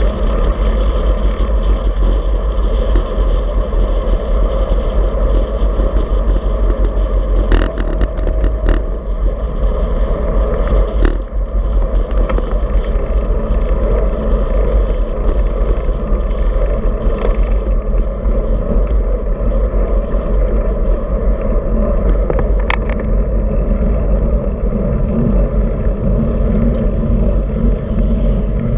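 Steady wind rush and tyre noise on a handlebar-mounted camera's microphone on a moving road bike, heaviest in the low rumble. A few sharp clicks cut through about eight seconds in, again around eleven seconds, and once more near twenty-three seconds.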